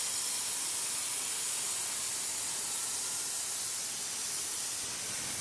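CNC plasma cutter's torch cutting through steel plate: a steady, loud hiss.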